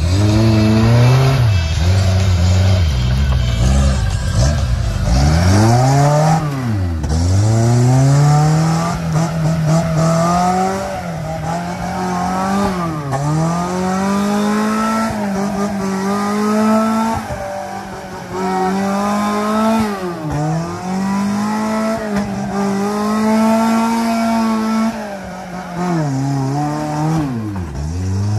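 Engine of a small off-road 4x4 revving hard through a deep mud pit, the revs rising and falling repeatedly and dropping right down about every six or seven seconds.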